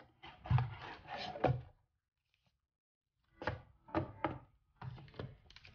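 A rigid cardboard DVD box set being turned over and handled: a few dull thumps and taps of card against card, then a pause of about a second and a half, then another run of taps as the insert is lifted from its tray.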